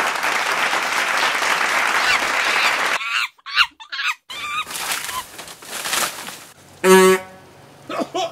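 About three seconds of even noise like applause, then a few short gliding calls, and two loud, drawn-out animal calls near the end, about two seconds apart.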